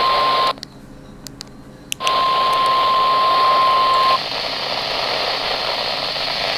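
NOAA Weather Radio warning alarm tone sounded as a weekly test: a steady single-pitch tone of about 1050 Hz over receiver static. It cuts out briefly about half a second in, comes back, and stops about four seconds in, leaving radio hiss.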